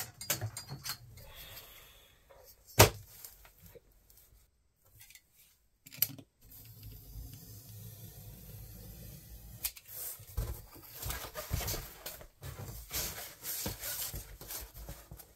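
Handling sounds of a steel ruler and utility knife on a sheet of foam core board: a sharp knock about three seconds in, a click at about six seconds, then light scraping and a run of small taps and clicks in the second half.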